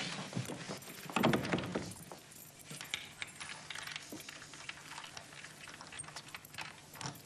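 Scattered small knocks, clicks and rustles of people moving about and handling things in a room, with a louder cluster of knocks about a second in, over a faint steady low hum.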